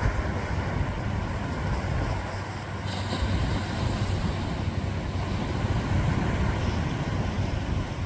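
Ocean surf with wind buffeting the microphone, a steady low rumble that barely changes.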